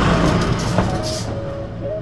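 Intro sting: a loud rumbling whoosh fades away while a few short musical notes come in about halfway through.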